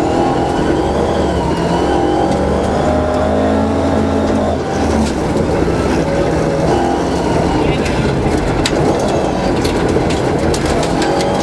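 Rally car engine at hard load on a gravel stage, its pitch climbing and dropping through gear changes. In the second half, sharp clicks of stones and gravel striking the car's underside.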